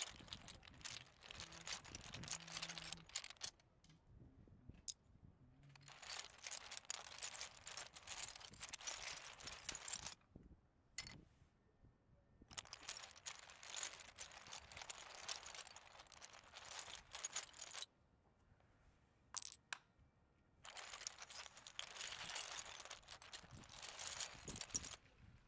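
LEGO train wheels rattling along plastic track, a faint high hiss that comes and goes in four stretches of three to five seconds each.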